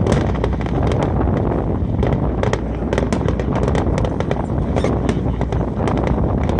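Fireworks bursting in a dense run of sharp cracks and pops, over a steady low rumble with wind buffeting the microphone.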